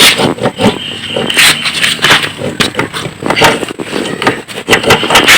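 Irregular clatter of knocks, clicks and scrapes, as of hand tools and metal engine parts being handled during engine dismantling.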